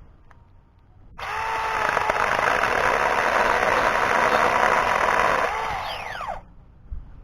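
Battery-powered 4-inch mini chainsaw running for about five seconds: its motor whine rises as it starts about a second in and falls away as it stops.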